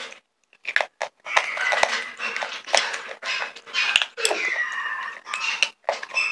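Close-miked crunching and chewing of slate pencil: many sharp cracks and snaps as the hard chalky stick is bitten and ground between the teeth, with a brief pause about half a second in.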